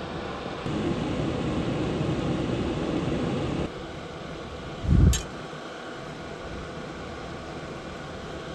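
Steady whirring background noise. It is louder for about three seconds near the start, then drops off abruptly. About five seconds in there is a single short, low thump with a click.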